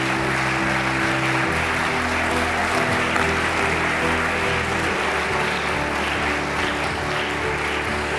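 Audience applauding steadily over walk-on music with sustained bass notes.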